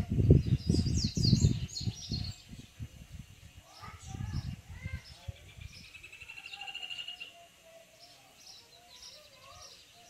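Male papa-capim (yellow-bellied seedeater) singing: quick high chirps and warbled notes, with a buzzy trill that swells about six seconds in. A heavy low rumble covers the first two seconds and returns briefly around four seconds in.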